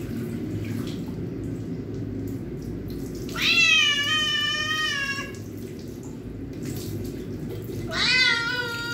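A cat giving two long, loud meows of protest while it is being bathed, the first about three seconds in and the second near the end. Tap water runs steadily into the sink throughout.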